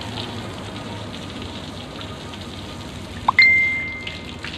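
Steady rush of running water, as from a kitchen tap. About three seconds in, something is struck with a sharp clink, and a single clear ringing tone fades out over about a second.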